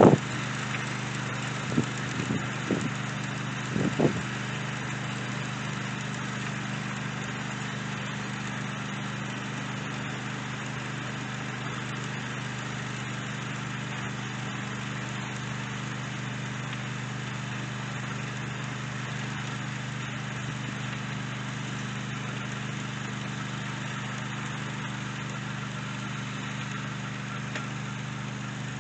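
Tractor engine running steadily at a constant pitch while cultivating garden ground, with a few brief knocks in the first few seconds.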